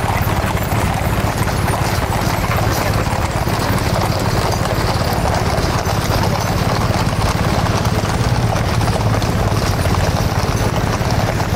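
Hooves of a column of the King's Troop Royal Horse Artillery's horses clip-clopping on the road as they ride past, over a steady low rumble.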